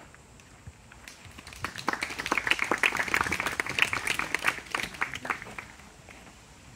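Audience applauding: a short round of clapping that starts about a second and a half in, swells, and dies away before the end.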